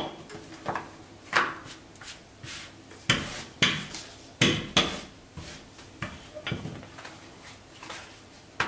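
Rolling pin rolling out dough, clacking against the work surface in a series of irregular knocks.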